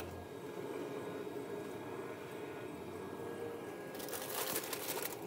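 Aluminium foil crinkling for about a second near the end, as a brisket is lowered onto it to form a foil boat. Before that only a low, steady background.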